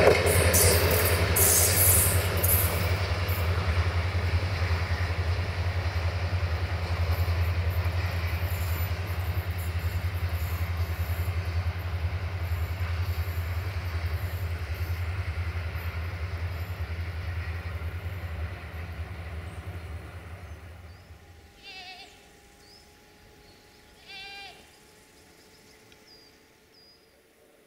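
Locomotive-hauled passenger train running away along the track, its rumble and wheel noise fading steadily until it is gone about three-quarters of the way through. Then two short wavering bleats, like a sheep's.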